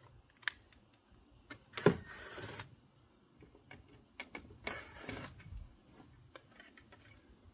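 Cordless drill run in two short bursts, about two seconds in and again about five seconds in, running screws into the holes of a plastic body panel. Small clicks and handling knocks come between the bursts.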